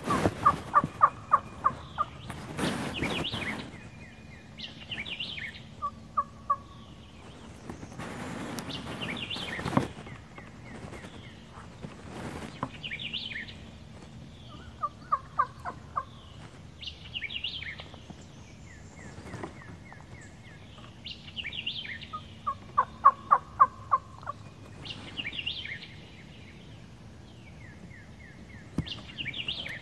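Turkey calling: short runs of rapid, evenly spaced notes, heard four times, the loudest near the start and about three-quarters of the way through. Songbirds chirp high in between, and there are two brief rushes of noise.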